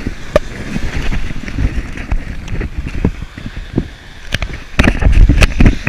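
Wind rumbling on the microphone, with scattered knocks and thumps that grow heaviest near the end.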